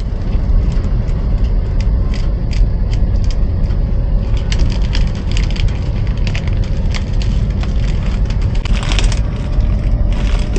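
Cabin noise of an old Kia sedan on the move: steady low engine and road rumble, with frequent small clicks and rattles.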